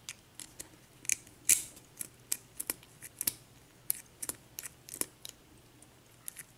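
Irregular small, sharp metallic clicks and taps of an Abus 83/50 padlock's parts being handled while it is taken apart, the loudest about one and a half seconds in.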